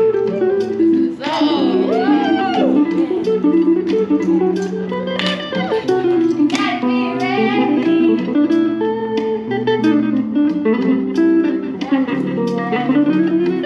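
Guitar played live: a continuous run of picked notes and held chords.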